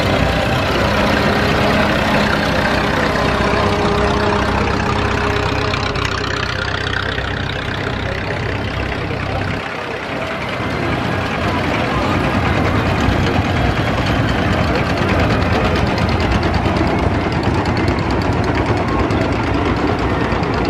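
Vintage tractor engines running as tractors pass close by one after another at parade pace. The steady engine note dips briefly about halfway through, and a Farmall Cub's small four-cylinder engine comes close near the end with an even, rapid firing beat. Crowd voices sound behind.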